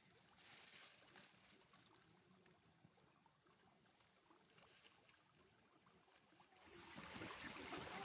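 Near silence with a faint noise, then about seven seconds in a louder sound of moving water sets in, with splashing crackle.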